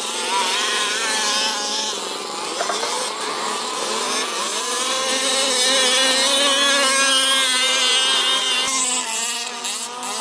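Small two-stroke petrol engines of 1/5-scale RC buggies running and revving, their pitch rising and falling as the throttle is worked, with a steadier engine note underneath.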